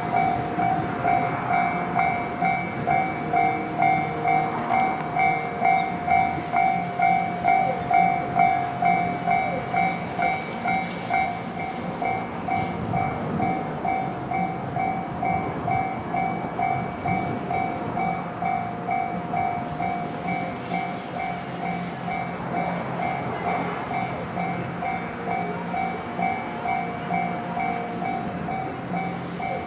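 Japanese level-crossing warning bell ringing on and on, an electronic ding repeating about twice a second, while a train runs along the rails through the crossing.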